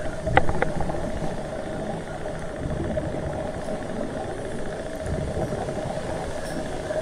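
Underwater sound through a camera housing: a steady low rumble with a constant hum, and a few short clicks about half a second in.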